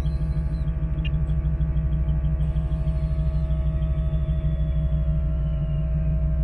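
1972 Chevrolet C10 pickup's engine idling, its exhaust note pulsing evenly several times a second.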